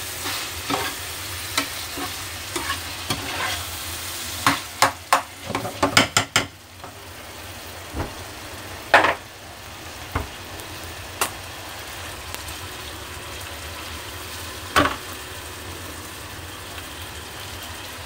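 Steady sizzle of food frying on the stove. About four to six and a half seconds in there is a quick run of sharp clicks, and a few single knocks come later.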